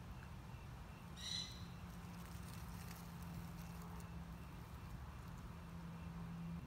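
Field mouse cornered by cats giving one short, high squeak about a second in. Under it are a steady low hum and a few faint rustles in the grass.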